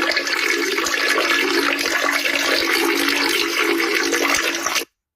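Peeing sound effect: a steady stream of liquid splashing into toilet water, cutting off suddenly near the end.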